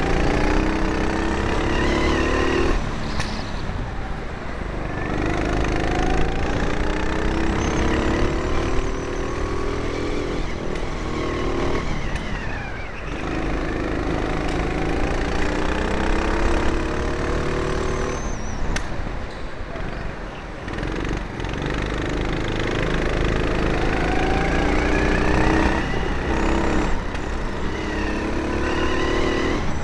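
Four-stroke rental kart engine heard onboard, revving up in rising sweeps and dropping back again, over and over, as the kart accelerates and lifts off around the track.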